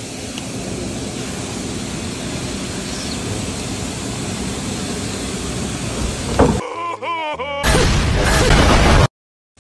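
Steady hiss of background noise, then about six and a half seconds in an edited-in meme sound effect: a short warbling, voice-like cry followed by a loud crashing blast that cuts off abruptly.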